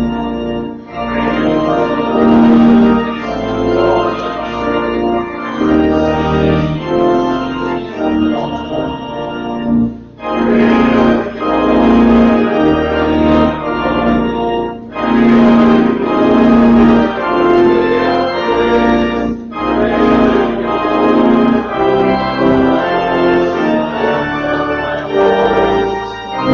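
Church organ playing slow, sustained chords in phrases, with short breaks between phrases about one, ten, fifteen and twenty seconds in.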